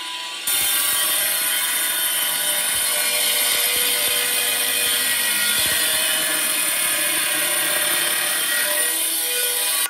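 A power tool running steadily with a loud, even grinding whir. It starts abruptly about half a second in and cuts off sharply at the end.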